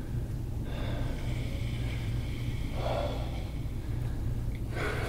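A person breathing out heavily through the nose, once about three seconds in and again near the end, while a massage roller is pressed into his upper back. A steady low hum runs underneath.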